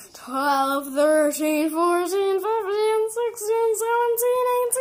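A girl singing a run of held notes in a high voice, the pitch climbing gradually.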